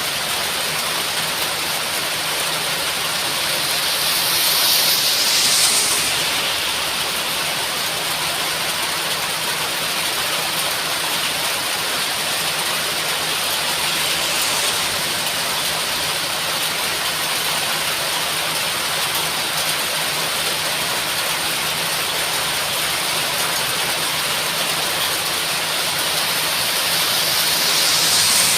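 Heavy rain pouring steadily, a dense even hiss, swelling louder and brighter about five seconds in and again near the end.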